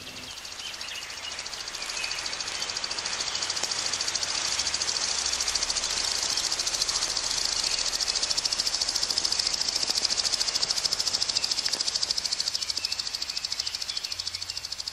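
Outdoor background ambience: a dense, high-pitched hiss with a fast, even pulsing. It swells over the first couple of seconds, then holds steady.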